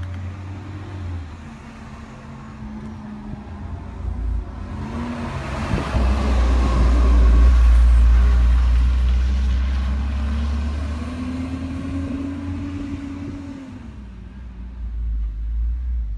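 Recycling garbage truck's diesel engine driving past: a low rumble that builds, is loudest about halfway through, then fades as the truck moves away, its engine note rising and falling on the way.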